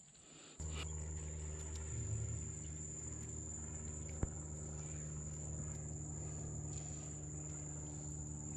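Crickets trilling steadily in one high, even tone. About half a second in, a steady low motor hum starts abruptly and stays under it, louder than the insects, with a single sharp click about four seconds in.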